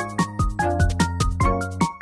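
Upbeat background music with a steady drum beat and bright pitched notes.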